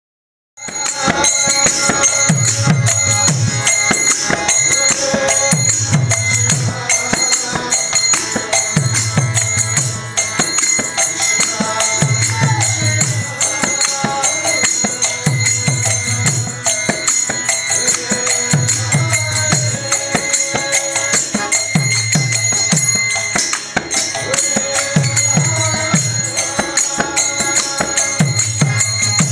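Live kirtan music: a man leads a chant over a harmonium drone, with deep mridanga drum strokes in a steady pattern and jingling hand cymbals. It cuts in abruptly about half a second in.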